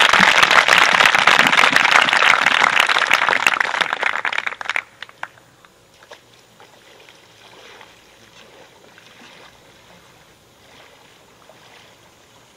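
Crowd applauding, dying away about five seconds in, then only faint background sound.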